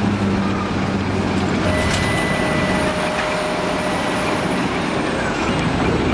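Timber truck running while its loader crane works. A steady engine hum gives way to a rough mechanical rumble about a second and a half in. A thin whine holds for about four seconds and slides down at the end, with two sharp knocks along the way.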